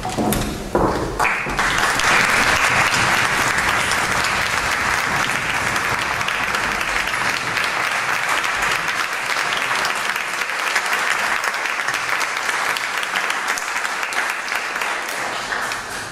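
Audience applauding: a dense, steady clapping that sets in sharply about a second in and dies away near the end.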